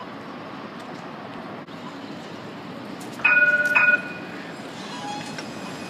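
A Melbourne C-class tram's bell sounding two loud dings about half a second apart over steady street hum, the tram's warning before it moves off.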